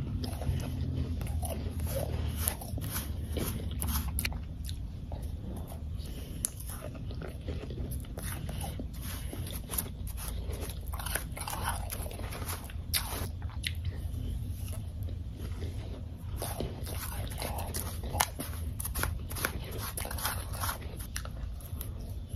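Close-up biting and chewing of powdery ice: an irregular run of soft crunches and crackles, with a metal spoon scooping in an enamel bowl. A steady low hum runs underneath.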